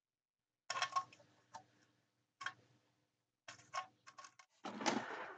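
Irregular clicks and taps of small hand tools and metal parts being handled while parts are taken off an old battery eliminator, ending in a short scraping rustle.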